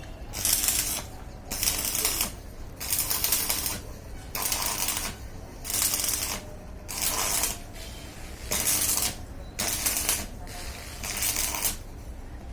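A hand tool worked in even back-and-forth strokes on a metal suspension part, each stroke a short rasping scrape, about nine strokes at roughly one every second and a bit.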